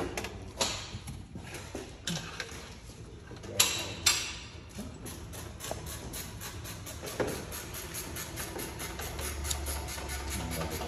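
Scattered sharp metallic knocks and clanks of tools and exhaust parts being handled during an exhaust install, with a faint, fast, even ticking in the second half.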